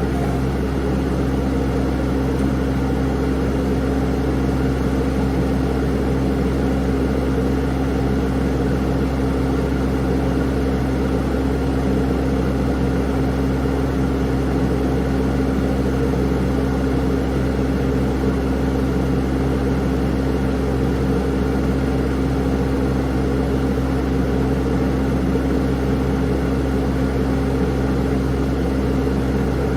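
Engine running at a steady speed, a constant low drone with a strong steady tone and no revving.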